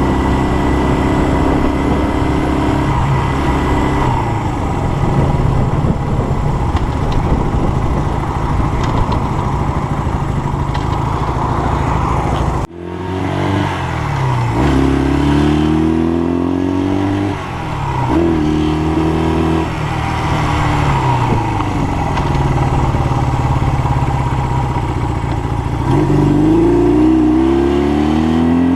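Honda CL175's small twin-cylinder engine under way on a ride, revving up through the gears: its pitch climbs and drops back at each shift, several times. There is a sudden brief break about a dozen seconds in.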